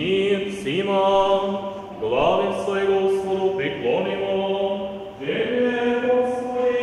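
Orthodox liturgical chanting: long held sung notes, each entering with a short upward slide, in a series of phrases.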